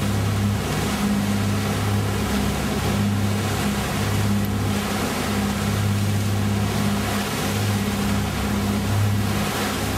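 A boat's engine running steadily under way, a low hum, over a constant rush of wind and water.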